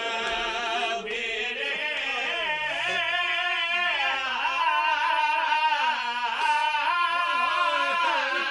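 A man's voice singing a drawn-out, wavering melodic line of a Punjabi/Saraiki lament, held tones without clear words.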